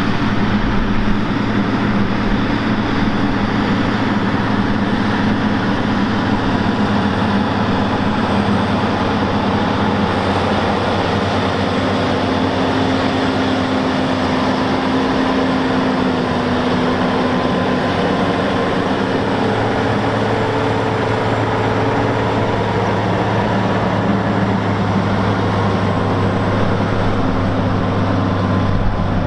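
CAT Challenger tractor's diesel engine running steadily under load while pulling a scraper pan, with its note shifting slightly partway through.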